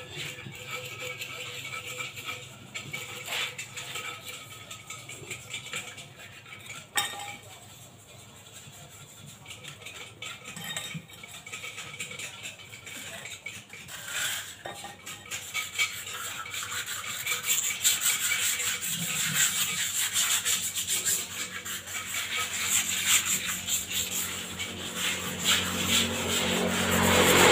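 Scrubbing and scraping on cement flower pots by hand, a continuous scratchy rubbing that grows louder in the second half, with a sharp knock about seven seconds in.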